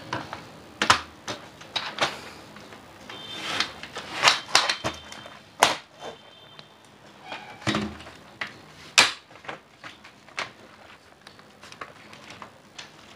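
Irregular plastic clicks, taps and knocks from a desktop computer keyboard being handled: keys pressed as the keycaps are pushed back into place, then the board lifted and turned over. A few knocks are louder, about a second in and again around four, six and nine seconds.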